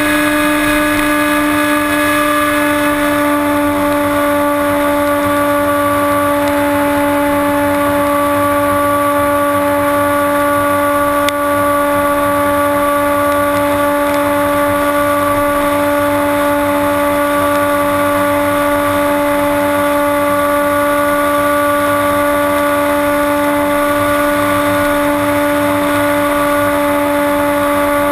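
Electric motor and propeller of a HobbyKing Bixler RC glider heard from a camera on board in flight, a loud, steady whine held at one pitch at cruise throttle.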